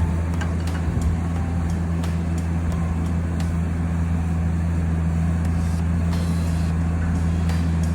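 A steady low mechanical hum, like a motor or engine running, with faint scattered ticks over it.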